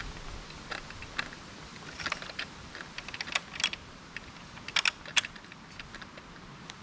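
Scattered sharp clicks and clacks as a wooden-framed wire-mesh gate is swung shut and its latch fastened. The loudest cluster of clicks comes just under five seconds in.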